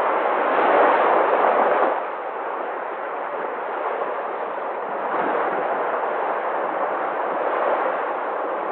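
Sea waves breaking on the shore: a louder crash in the first two seconds, then a steady rush of surf.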